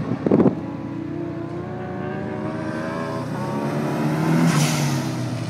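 Nissan S13 Silvia's engine revving on a course run, its pitch rising and falling as the throttle is worked, loudest as the car comes past close about four and a half seconds in. A few loud bumps on the microphone come at the very start.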